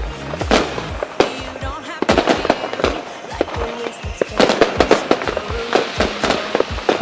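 Aerial fireworks bursting overhead: a rapid, irregular run of bangs and crackles, several a second, with music playing underneath.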